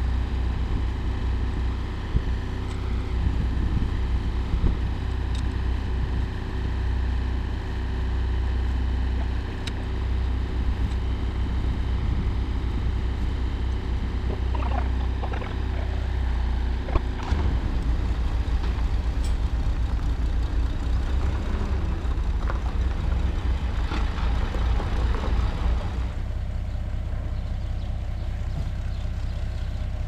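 Tractor engine idling steadily, a low rumble with a few scattered knocks partway through.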